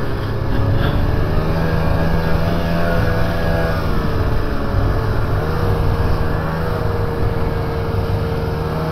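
Snowmobile engine running steadily at trail speed, heard from the rider's seat, its pitch sagging slightly a couple of times as the throttle eases.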